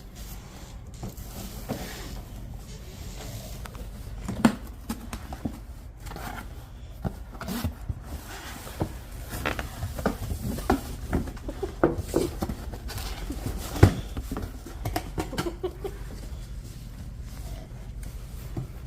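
A dog handling a box: irregular knocks and scrapes, the loudest about four and a half and fourteen seconds in, with a few short animal sounds in between.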